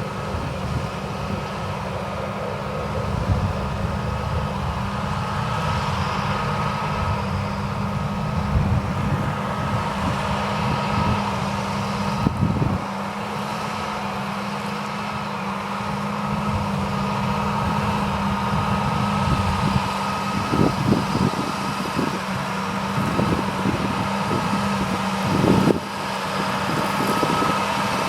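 John Deere 8370R tractor pulling a Krone Big Pack 1290 HDP II large square baler at work: a steady engine and driveline hum with a faint higher machine whine, broken by occasional irregular low thuds.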